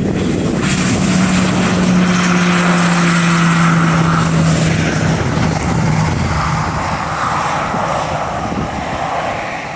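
Propeller-driven agricultural airplane flying a low pass: the engine and propeller drone drops in pitch as it goes by, then fades as it moves away.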